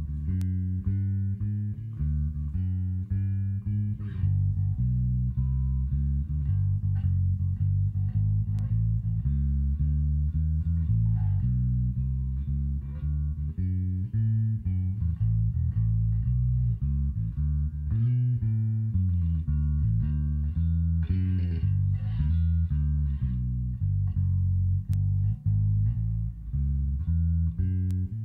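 Sadowsky electric bass, played passive, run through a Little Walter PB100 100-watt tube bass head into mic'd 2x10 and 1x12 cabinets: an unbroken stream of plucked bass lines and notes, changing pitch every fraction of a second.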